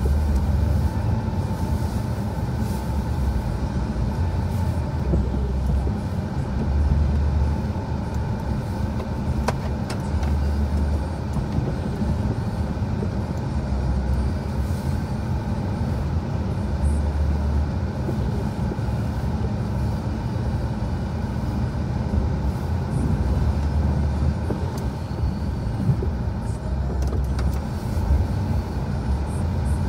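Snowplow truck's engine running, heard from inside the cab as a steady low rumble that swells and eases every few seconds while the truck pushes snow.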